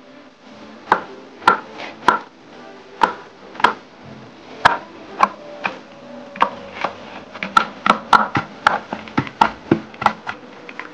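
Kitchen knife chopping onion on a wooden cutting board: sharp knocks of the blade on the board, slow and uneven at first, then quicker and closer together in the second half.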